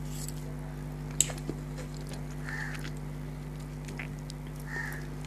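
Close-up chewing of a mouthful of instant noodles: soft wet mouth sounds and small clicks, the sharpest a little over a second in, over a steady low electrical hum.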